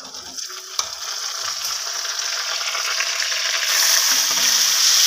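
Wet masala (spice paste) poured into hot oil and fried onions in a wok, sizzling; the sizzle builds and becomes loud and steady about three and a half seconds in.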